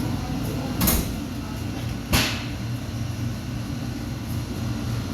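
A commercial refrigerator's refrigeration unit running with a steady low hum. Two sharp knocks cut through it, about a second in and again just after two seconds.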